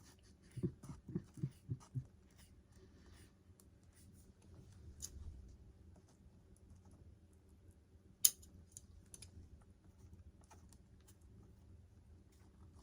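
Faint scattered clicks and small handling noises of hands-on wiring work on small leads and connectors, with a few soft low knocks in the first two seconds and one sharp click about eight seconds in.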